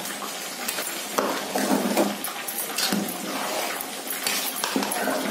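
Metal spoon stirring and turning wet, part-cooked rice up from the bottom of a metal pot, scraping irregularly against the pot with a few sharper knocks, about a second in, three seconds in and near the end.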